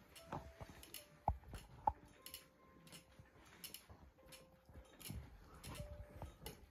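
Electric baby cradle swing rocking: faint ticks and clicks, with a few brief squeaks. Two sharp ticks come a little over a second in and just under two seconds in.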